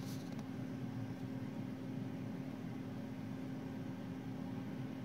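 Small electric motor of a rotating display turntable humming steadily, with one constant low tone over a soft even whir.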